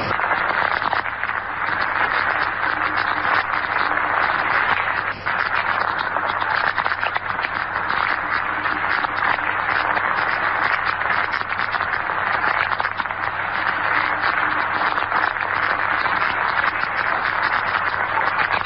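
Steady radio static and hiss from an archival 1941 broadcast recording, with a low steady hum underneath and no voice on the line.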